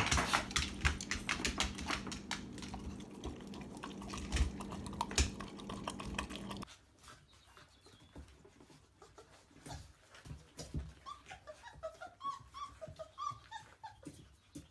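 Rapid clicking and tapping over a low steady hum. About seven seconds in it drops to a quieter stretch of chocolate Labrador puppies eating kibble from a multi-bowl feeder: small crunches and clinks with a few short, high puppy squeaks.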